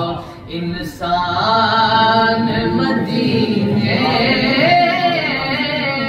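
A man singing a naat, an Urdu devotional poem, in a solo voice, drawing out long ornamented notes that bend up and down; a short breath pause falls just before a second in.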